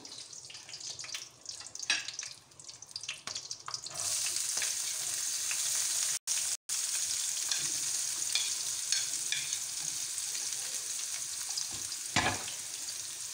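Chopped onions frying in hot ghee in a wok, stirred with a wooden spatula. Light clicks and knocks for the first few seconds, then a steady sizzle from about four seconds in, with occasional spatula taps.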